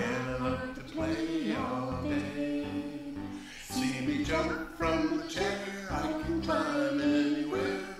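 A song with several voices singing over an instrumental backing.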